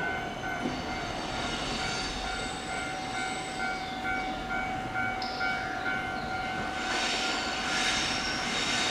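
EF64 electric locomotive hauling a train slowly into a station platform: a steady whine made of several high held tones over a low rumble. It grows louder and harsher about seven seconds in as the locomotive draws near.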